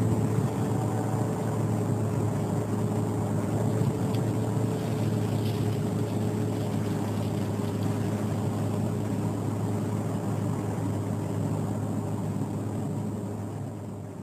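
Steady low drone of a car driving along a road, engine hum and road noise, fading out over the last couple of seconds.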